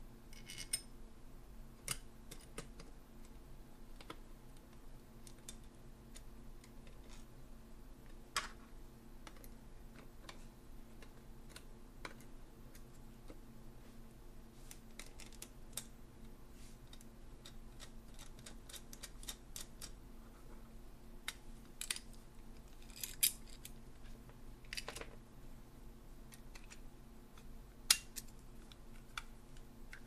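Scattered small metallic clicks and taps of a Weiser deadbolt lock body and its parts being handled and put back together with screws, over a steady low hum.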